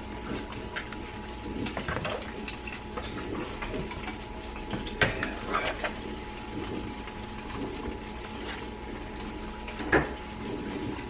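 Hands dredging rabbit pieces in seasoned flour in a plastic bowl: soft rustling and patting, with sharper knocks against the bowl about five and ten seconds in, over a steady low hum.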